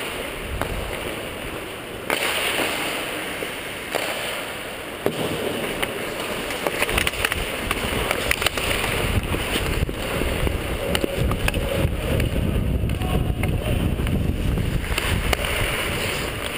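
Ice hockey skates scraping and carving across rink ice during play, with wind rumbling on a player-worn camera's microphone, heaviest in the second half. Several sharp clacks of sticks and puck come through.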